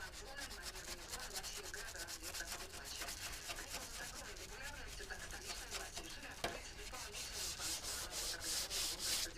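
Sandpaper rubbed back and forth by hand over a car body panel in quick scratchy strokes, stronger near the end at about three strokes a second, with a single knock about two-thirds of the way through.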